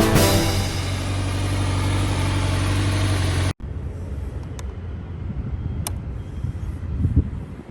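A motorcycle engine idling steadily with a low hum, which breaks off abruptly about three and a half seconds in; quieter background noise with a couple of sharp clicks follows.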